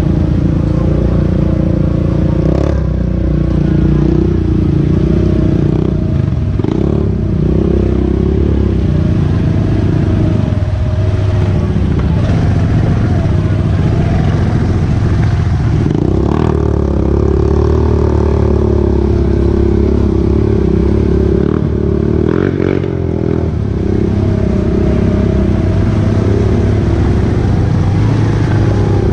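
ATV engine running on a muddy trail, its pitch shifting up and down with the throttle, with occasional knocks and clatter from the machine over rough ground.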